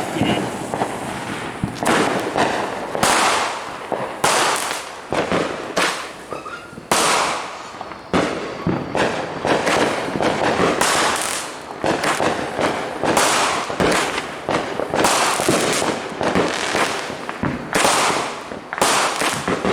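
Consumer fireworks going off in a continuous string of bangs, about one a second, each with a noisy trailing crackle.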